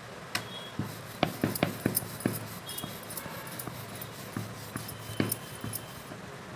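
Wooden rolling pin rolling paratha dough on a round wooden board, with irregular light knocks and clacks of wood on wood as the pin and board shift, busiest in the first couple of seconds.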